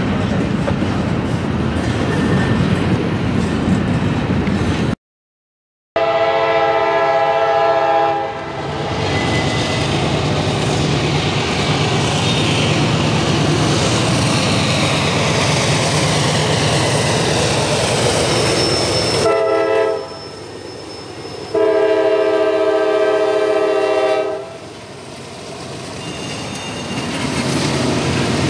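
Double-stack container train's well cars rolling past with steady wheel and rail noise. After a break, a CSX diesel freight locomotive's multi-chime air horn sounds one long blast as the train approaches, and its engine and wheels rumble. A short and then a long blast follow about two-thirds of the way through, the close of a grade-crossing horn signal.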